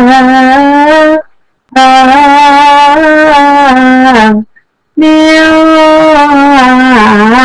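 A reed or brass wind instrument playing long held notes, each about two and a half seconds, with short breaks between them and slight bends in pitch. It is very loud and pushes the recording to its full level.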